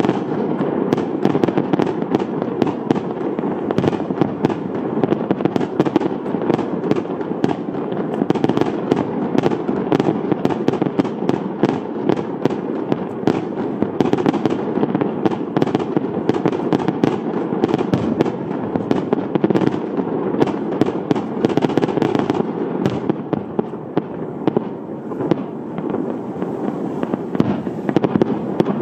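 Fireworks display: a dense, continuous rumble of launches and shell bursts with many sharp cracks and bangs overlapping, several a second.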